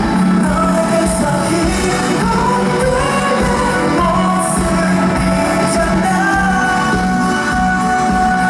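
Live pop music: a singer holding long notes over the accompaniment, loud and steady.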